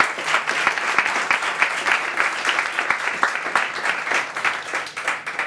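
Small audience applauding: dense hand-clapping that starts to thin out near the end.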